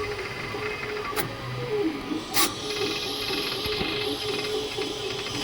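Creality K2 Plus 3D printer running a print: its motors hum at a steady pitch that dips and glides as the moves change, over a run of small ticks, with two sharp clicks about one and two and a half seconds in. The owner takes it for a strange noise he doesn't remember the printer making, perhaps tied to a slow print-speed setting.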